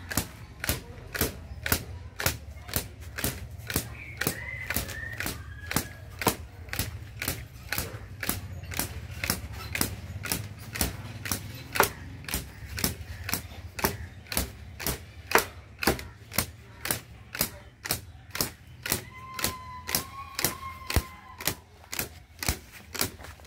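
A cotton carder's bow (dhunki) being struck on its string with a wooden dumbbell-shaped mallet (jista), giving a sharp twanging snap about twice a second as it fluffs raw cotton for quilt stuffing.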